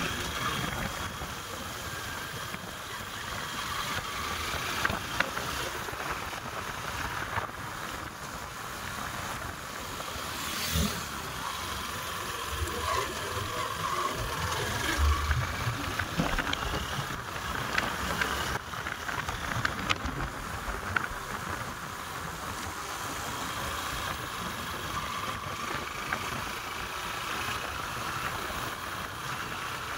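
Steady vehicle running with a wind-like rushing noise, and scattered sharp clicks and bumps throughout.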